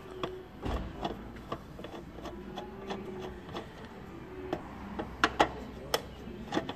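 Phillips screwdriver turning screws out of the plastic bulb holder of a car tail-light unit: scattered small clicks and ticks, with a few sharper clicks about five seconds in.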